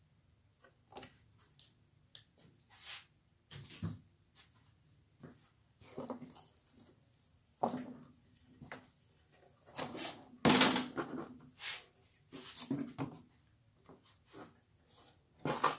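Irregular metal clunks, knocks and scrapes as a Fordomatic two-speed transmission case and its parts are handled and turned over on the bench; the loudest knock comes about ten and a half seconds in.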